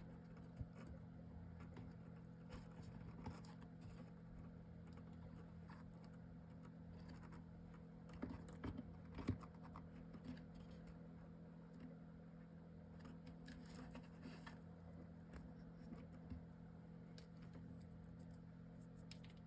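Near silence: a steady low hum with scattered faint taps and light scrapes of chipboard and paper pieces being handled and pressed into place, a few slightly louder taps around the middle.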